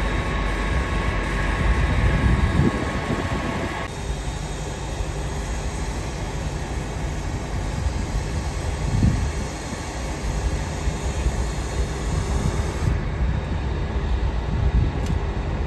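Diesel shunting locomotive engines running, a steady low rumble, with a steady whine over it for the first four seconds that stops suddenly.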